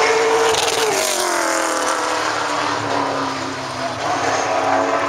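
Late model stock car's V8 engine racing past on a time-trial lap; its pitch drops as it goes by about a second in, then holds fairly steady as it runs on around the track.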